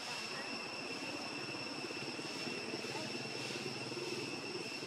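Steady outdoor ambience: a continuous high-pitched insect drone, with a low engine-like rumble underneath that swells slightly in the middle.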